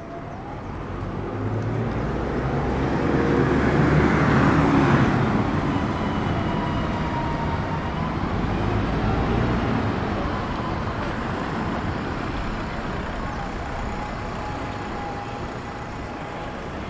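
A motor vehicle driving past close by, its engine and tyres swelling to loudest about four to five seconds in, then fading away slowly.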